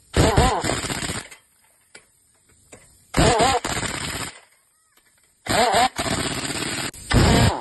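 Pneumatic impact wrench hammering on a semi-truck wheel's lug nuts in three bursts, the last one longest, each opening with a brief wavering whine as the tool spins up.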